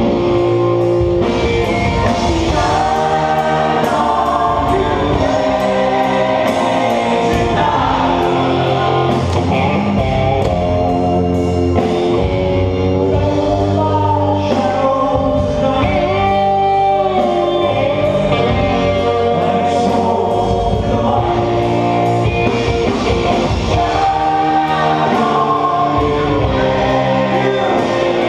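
Live rock band playing, with sung lead and backing vocals over electric guitar and a steady ticking beat up high. The Fender electric guitar is played close by.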